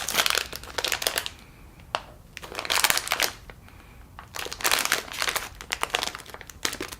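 Small plastic fruit-snack bag crinkling in about four or five separate bursts as it is handled and opened.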